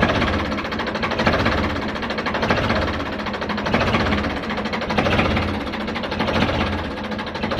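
Toy tractor's small motor running steadily with a fast rattling buzz that swells and dips about once a second.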